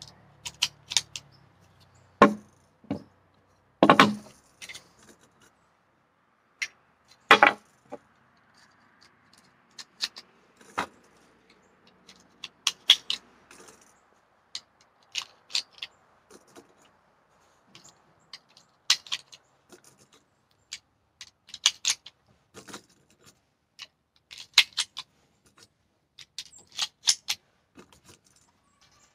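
Small metallic clicks of .45 ACP cartridges being pressed one at a time into a 1911 pistol magazine, irregular and unhurried, with a few louder knocks among them.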